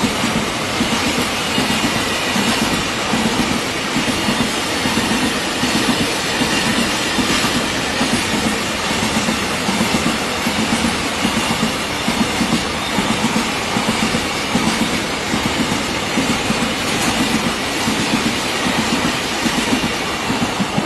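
Double-stack container freight wagons rolling past close by, their wheels running with a steady rumble and a regular clickety-clack over the rail joints.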